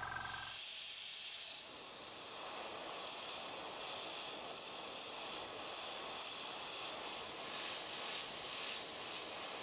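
Steady faint hiss with a few soft rustles, about four seconds in and again around eight seconds in, as gloved fingers press a clear plastic film onto a wet-painted spoon lure.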